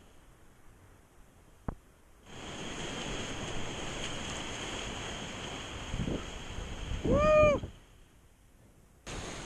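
Whitewater rapids rushing around a kayak. The water sound nearly drops out for the first two seconds, apart from a single click, and again shortly before the end. About seven seconds in comes a short, loud, high-pitched whoop that rises and falls.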